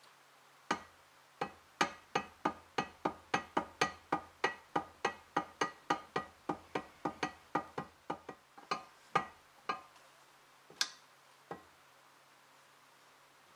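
Sharp metal clicks, evenly spaced at about four a second, with a brief ring to each, as a tool is worked on the handwheel hub of a rusty cast-iron book press. The clicks stop about ten seconds in, and two single clicks follow.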